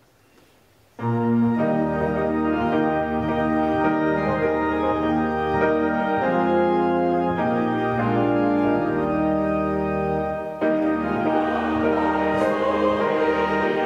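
Church organ with piano playing the hymn's introduction in long held chords, starting suddenly about a second in. Near the end the choir comes in singing over the organ.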